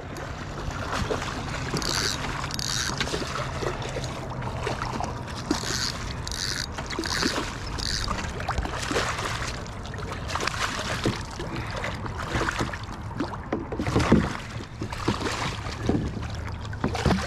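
A striped bass being reeled in and handled aboard a kayak: scattered knocks and splashy handling noises against the hull, with a few short hissy bursts and one louder knock about fourteen seconds in, over a steady low hum.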